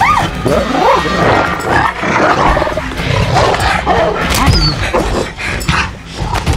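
Rottweiler growling and snarling in repeated bursts as it attacks inside a car's cabin, over tense film score music.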